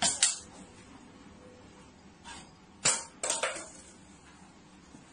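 Plastic water bottle knocking on a shelf: two sharp knocks as it is set down at the start, then a few more sharp knocks about three seconds in as it is knocked off and falls.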